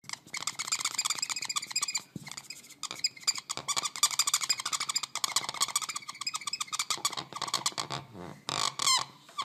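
Felt-tip marker squeaking across a whiteboard in quick, rapid writing strokes, with a few brief pauses and a couple of longer squealing strokes near the end.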